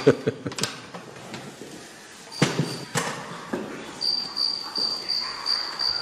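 Crickets chirping in a steady pulsed rhythm, about three chirps a second, through the second half. A few knocks and footsteps on a hard floor come earlier as a man gets up from his seat and walks.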